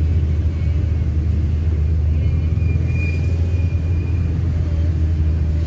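Steady low rumble of a car's engine and tyres while driving along a road. A faint, thin high tone comes in for about two seconds near the middle.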